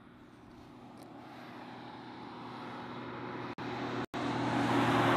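A road vehicle approaching, its engine and tyre noise growing steadily louder as it nears, with the sound cutting out briefly twice.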